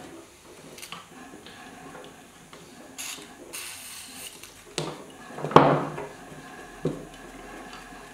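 Handling sounds on a Delta scroll saw's metal arm as penetrating oil goes into its pivot: a short hiss from the aerosol can about three seconds in, and scattered metal clicks and knocks. The loudest clunk comes about five and a half seconds in.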